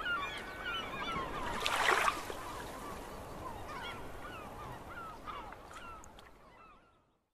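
Birds calling in short, repeated hooked cries over a steady hiss, with a brief louder rush of noise about two seconds in; the sound fades out near the end.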